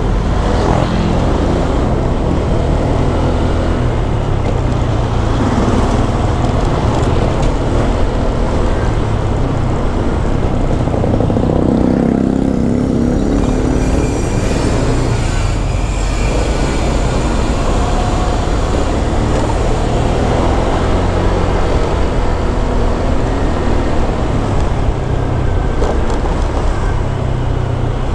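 Steady, loud riding noise from a Honda Click 125 scooter: wind rumbling on the microphone over the engine and road noise, with traffic around it.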